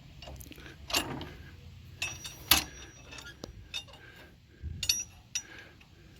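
Steel tractor hitch parts clanking and clinking as they are handled and knocked loose by hand, with a few sharp metal knocks about one, two and a half, and five seconds in.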